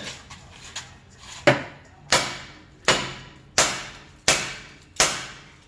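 Hammer blows on the front steering knuckle of a Nissan D21 Hardbody while removing the upper ball joint: six heavy metal-on-metal strikes, evenly spaced about three-quarters of a second apart, each ringing briefly, with a few light clicks before them.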